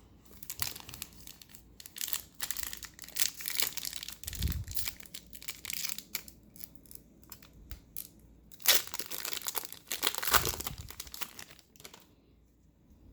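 Booster pack wrappers crinkling and tearing as Pokémon card packs are opened and handled, in irregular bursts of rustling. The loudest two come near the end, then it stops.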